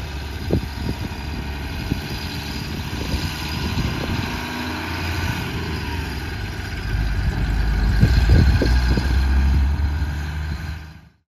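Heavy Ford LNT9000 truck's diesel engine running as the truck drives slowly across a field, a steady low rumble that grows louder as it draws nearer, then cuts off abruptly near the end.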